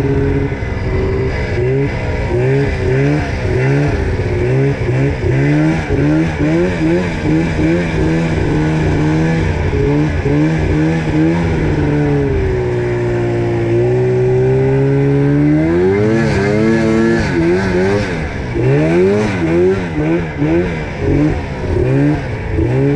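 Snowmobile engine running under constantly changing throttle, its pitch rising and falling as the sled is ridden through snow. About twelve seconds in it eases into a lower, steadier note for a few seconds, then climbs again.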